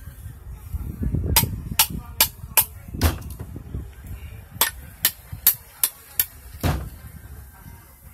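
A hammer striking a conch shell with sharp knocks, about two to three a second, in two runs of five or six.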